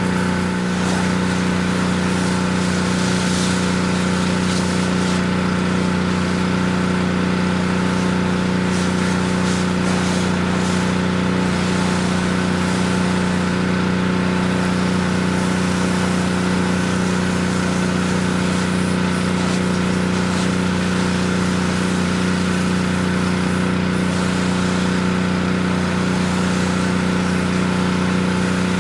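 Pressure washer's gas engine running at a steady speed, with the hiss of water spraying from the wand.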